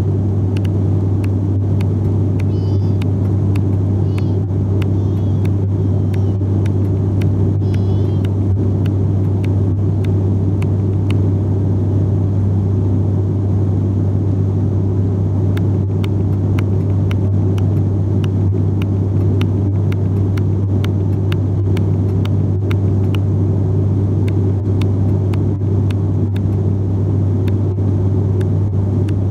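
Cabin drone of an ATR 72 turboprop in flight: the engine and propeller make a deep, steady hum over a constant rumble, unchanging throughout.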